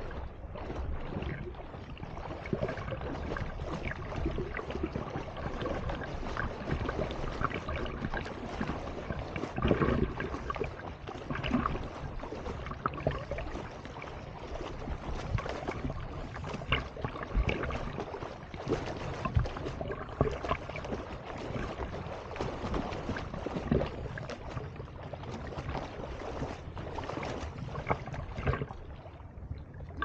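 Seawater splashing and sloshing from a swimmer's kicks and arm strokes, heard from right at the water surface: a continuous wash of water noise broken by irregular splashes, a few louder ones about ten, seventeen and nineteen seconds in.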